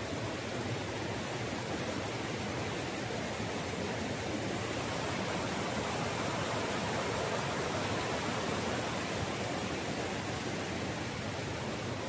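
Steady rush of a fast-flowing jungle river over rocks, swelling slightly midway.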